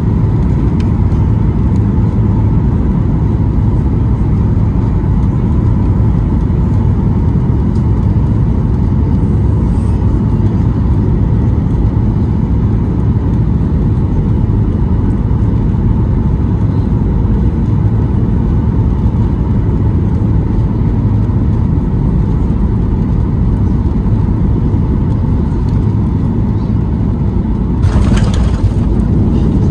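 Cabin noise inside a Boeing 737-800 airliner in flight: the steady low rumble of its CFM56-7B jet engines and the airflow, with a faint steady whine. There is a brief louder hiss near the end.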